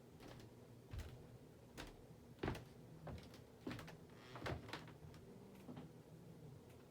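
Monte Carlo Vios ceiling fan running on high in reverse: a faint steady hum with scattered, irregular soft clicks and knocks.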